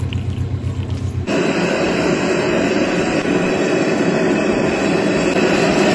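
Stall's gas burner roaring steadily under a pot of tea, coming in about a second in after a brief low hum.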